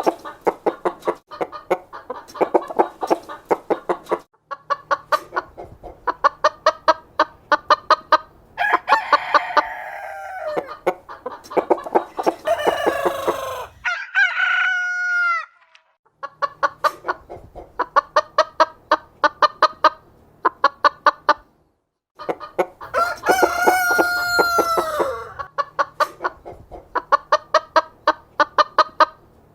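Chickens clucking in quick runs of short, rapid clucks, broken by short pauses. A rooster crows in the middle and again about twenty-three seconds in, each crow a long call that falls away at the end.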